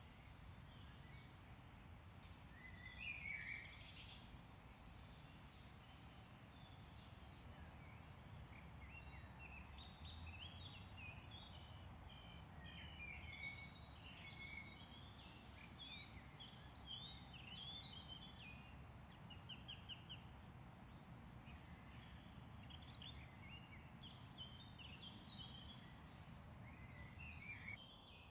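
Songbirds singing faintly in short chirps and trills, over a low steady background rumble.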